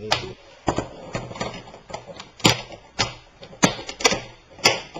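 Plastic snap clips of a notebook's LCD front bezel clicking loose one after another as it is pried off by hand. About ten sharp clicks at an uneven pace, the loudest in the second half.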